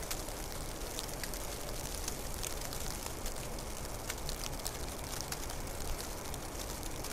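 Snow falling, heard as many small irregular ticks over a steady hiss and a low rumble.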